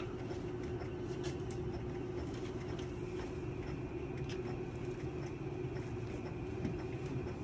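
Haemonetics Cell Saver running in its purge cycle: a steady machine hum with one fixed tone, joined about three seconds in by a faint higher tone.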